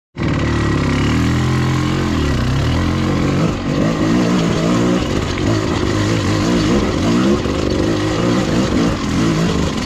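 1995 KTM 300 two-stroke dirt bike engine revving up and down continuously under changing throttle as it is ridden over rough, rocky trail. It cuts in suddenly at the start.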